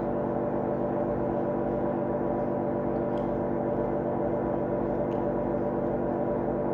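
Steady, unchanging drone of ambient background music, a held chord of several tones, with a couple of faint ticks.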